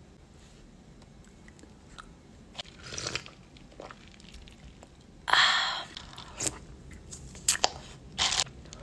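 Close-up crunching and chewing of an icy drink, with scraping rustles of crushed ice stirred in a plastic cup. There are several short crunches after a quiet first few seconds; the loudest comes about halfway, and a few sharp clicks follow.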